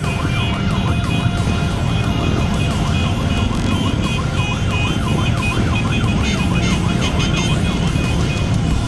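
A siren sweeping rapidly up and down in pitch, over the steady rumble of motorcycle engines.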